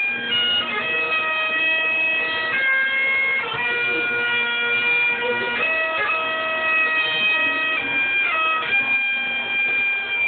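Highland bagpipes playing a tune: the chanter steps from note to note over the steady, unbroken sound of the drones.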